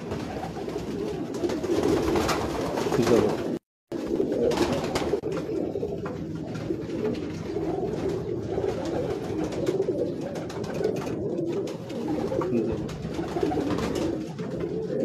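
Domestic pigeons cooing, a continuous overlapping chorus of low coos, which cuts out for a moment about four seconds in.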